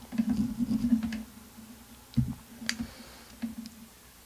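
Small parts and tools being handled on a silicone work mat: capacitors moved and set down and a soldering iron and flux pen picked up. There is rustling handling noise at first, a low knock about two seconds in, a sharp click just after, and a few light ticks.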